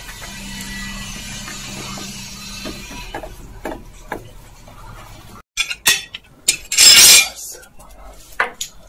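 A plastic cable tie ratcheting as it is pulled tight around hoses for about three seconds, followed by a couple of light clicks. Then loud sharp knocks and clanks of metal tools, the loudest a short rush of noise about seven seconds in.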